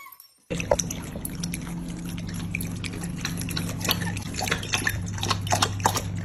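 A dog lapping water from a bowl: rapid, irregular wet clicks and slurps, with a steady low hum underneath.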